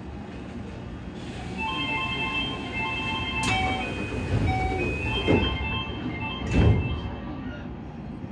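Keio 8000-series commuter train rumbling, with a short melody of electronic chime tones over it and two heavy thuds near the end.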